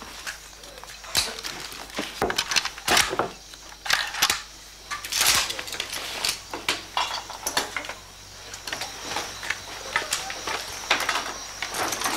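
Irregular metallic clicks, knocks and clinks of rifles and kit being handled.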